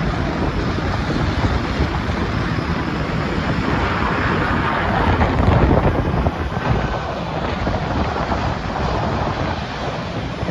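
A widebody twin-jet airliner on final approach with its gear down passes low overhead. Its jet engine noise swells to its loudest about halfway through, then eases off. Wind buffets the microphone throughout.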